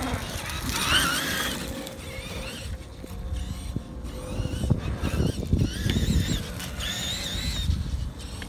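Traxxas E-Maxx electric RC monster truck running on grass: its twin electric motors whine, rising and falling in pitch with the throttle, over a low rumble.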